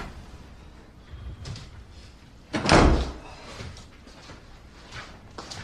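A sudden loud knock or rattle about two and a half seconds in, lasting under half a second, with fainter knocks before and after it.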